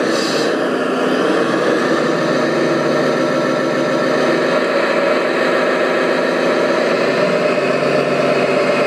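Radio-controlled construction machines running with a steady engine sound. There is a brief high hiss just after the start.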